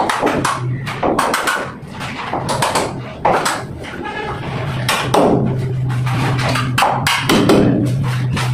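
Irregular hammer knocks on a plastic door frame and the brickwork around it as the frame is fitted, some knocks with a short ring after them. A steady low hum runs underneath.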